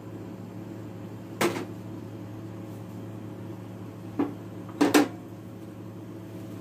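Four sharp knocks of kitchen utensils or fittings being handled: one about a second and a half in, then three between four and five seconds, the last two close together and loudest. Under them runs a steady low hum.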